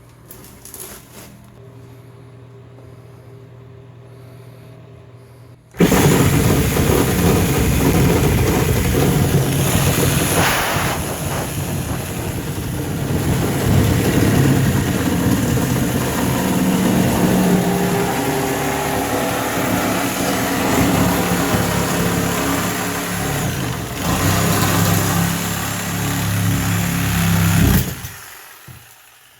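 A power saw starts about six seconds in and runs for over twenty seconds, cutting through a fiberglass bathtub surround. Its pitch shifts as it works, and it winds down near the end.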